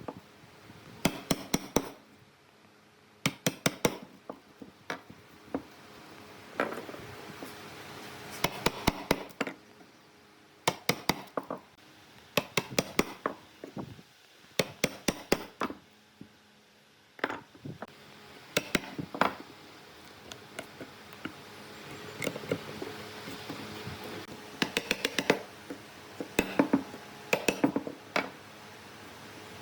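Hand tool striking wood in quick bursts of several sharp knocks, with short pauses between bursts, as in hammer or mallet work on a woodworking project.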